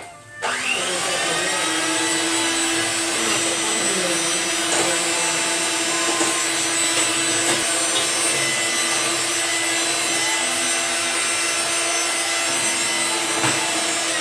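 Electric hand mixer starting about half a second in with a rising whine, then running steadily as its beaters whip eggs in a stainless steel bowl.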